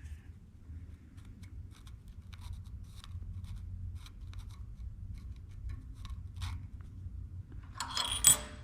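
Light scratches and small taps of hand tools marking out lines on a metal plate, over a low steady hum. Near the end a metal tool is set down with a ringing clatter, the loudest sound.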